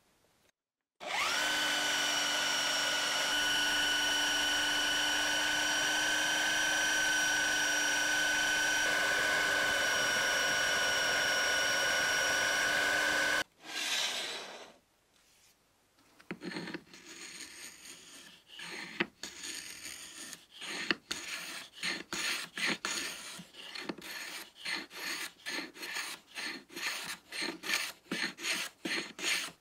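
A bench-clamped Parkside electric power tool starts with a rising whine about a second in, runs steadily for about twelve seconds, then stops. About three seconds later, a piece of wood is hand-sanded with sandpaper in quick back-and-forth strokes.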